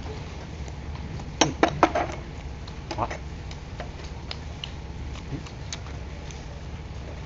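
A metal spoon clinking against small ceramic bowls: a quick run of three or four sharp clinks about a second and a half in, another near three seconds, and fainter ticks scattered through the rest.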